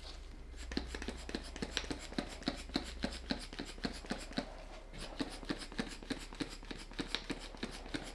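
Light, rapid taps, about three a second, of a glitter container being tapped to sprinkle cosmetic glitter over the top of the soap.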